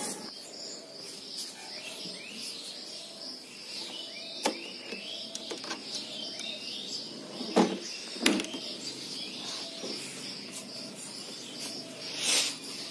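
Sharp clicks from a scooter's ignition key and switch being worked, the loudest two close together about two-thirds of the way through, over birds chirping and a faint steady high hiss. A brief whoosh comes near the end.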